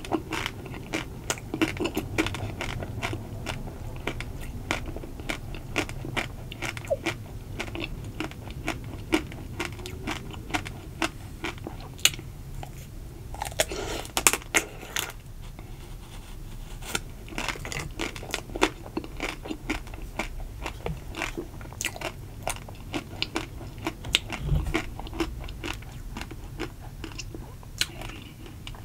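Close-miked biting and chewing of a ruby cocoa chocolate-coated ice cream bar, the thin chocolate shell cracking and crunching in quick crackles between chews.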